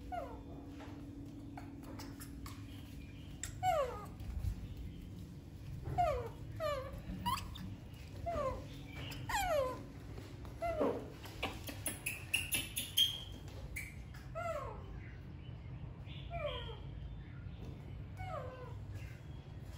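Baby monkey calling: short, high cries that each slide down in pitch, repeated about once a second, sometimes two in quick succession.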